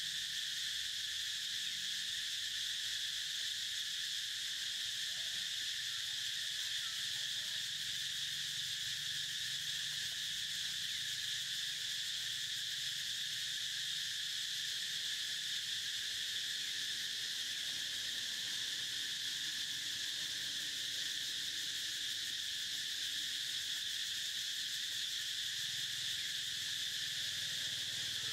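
Steady chorus of insects, a continuous high-pitched drone that holds unchanged throughout.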